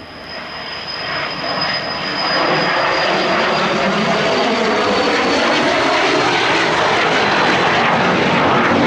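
Cessna Citation CJ4 business jet's twin Williams FJ44-4A turbofans at takeoff power as it lifts off and climbs out. The jet noise builds over the first couple of seconds, then holds loud and steady, with a high whine slowly falling in pitch as the jet passes.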